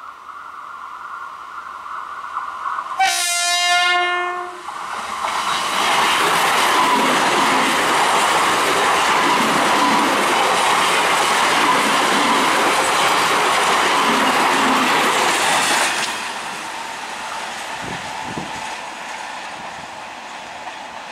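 Electric multiple unit (EMU) local train sounding one horn blast of about a second and a half, about three seconds in. It then runs past close by, with loud steady rolling and clickety-clack of wheels over the rails for about ten seconds. This cuts off abruptly near the end, leaving a quieter distant train rumble.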